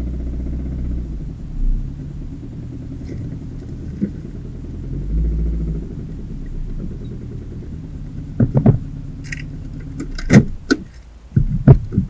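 Renault 9 engine running with a heavy engine knock, the sign of a seriously worn engine. Several loud clunks come over it in the last few seconds, as the engine's rumble dies away.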